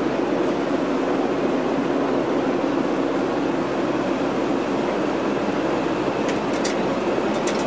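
Cabin noise of a Lockheed L-188 Electra in flight: the steady, deep drone of its four Allison turboprop engines and propellers. A few short clicks sound near the end.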